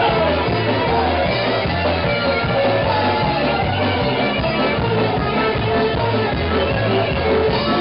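Live band playing loud psychobilly-jazz-punk music, with a driving repetitive bass line and pitched melodic lines over it, heard from inside the crowd.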